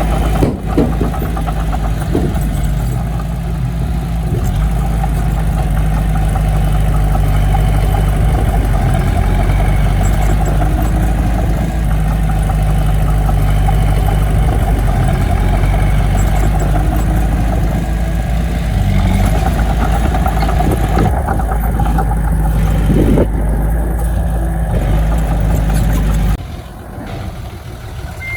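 Diesel engine of heavy earthmoving equipment running steadily; the sound drops away suddenly near the end.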